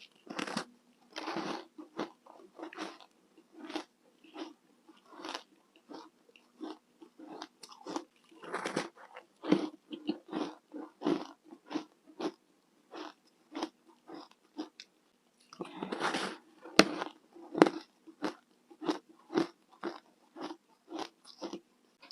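Close-up crunching of hard freezer ice being bitten and chewed, about one to two crunches a second, with several longer, louder bites. A faint steady low hum runs underneath.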